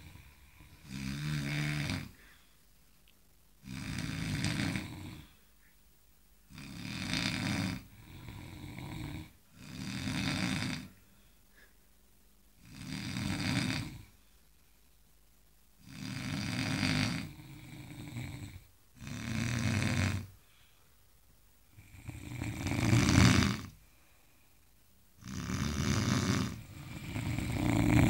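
People snoring while asleep: loud snores on each breath, about one every two to three seconds, with short quiet pauses between them.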